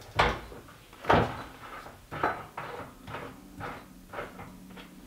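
A handful of short metal knocks and clunks as a reloading press's mount is worked loose on a bench swivel base. The sharpest knocks come near the start and about a second in, with lighter ones after.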